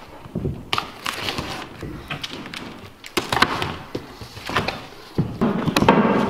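Large cardboard carton being torn open by hand: flaps pulled back with irregular scraping, tearing and crackling. It gets denser and louder about five seconds in.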